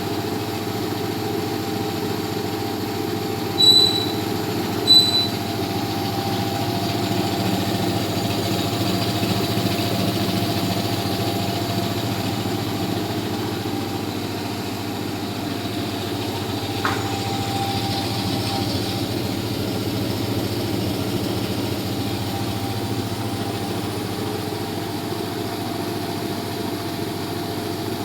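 1 HP twin-piston air compressor running steadily, a continuous mechanical drone with a steady hum. Two short high beeps sound about four and five seconds in, and a brief click comes later.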